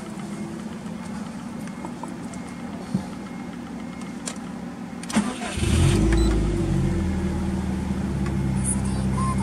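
Subaru Impreza STi (GDB) EJ207 turbocharged flat-four with an aftermarket muffler being started: after a low steady hum, the starter cranks briefly about five seconds in and the engine catches, then settles into a steady idle.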